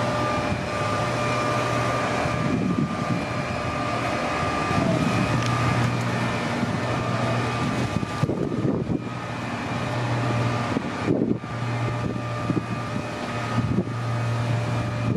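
Steady engine drone holding one pitch, under wind rushing and buffeting the microphone.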